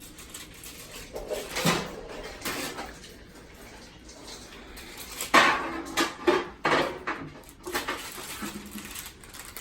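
Kitchen dishes and utensils clattering and knocking, a series of light knocks that are loudest about five to seven seconds in.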